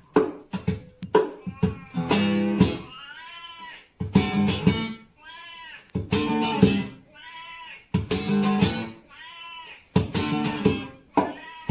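A cat meowing several times, each meow rising and falling in pitch, over music with plucked guitar.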